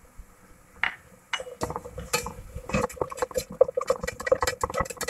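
Slotted spatula stirring and scraping chopped vegetables around a nonstick pan. A couple of light taps come first, then from about a second and a half in there is rapid, repeated clattering and scraping.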